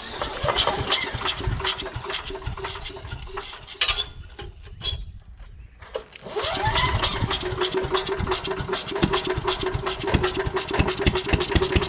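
Small gasoline engine of an old wood chipper firing up on fresh gas poured into its carburetor, the old fuel in its tank having gone bad. It runs for about four seconds, dies down, then catches again about six seconds in and keeps running steadily.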